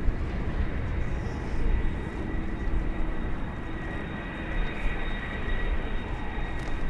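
Jet airliner's engines running, a steady rumble with a thin high whine on top.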